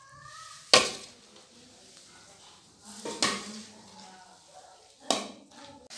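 A metal spoon knocking sharply against a large metal pan three times, with soft stirring between the knocks, as torn bread pieces soaked in broth are mixed.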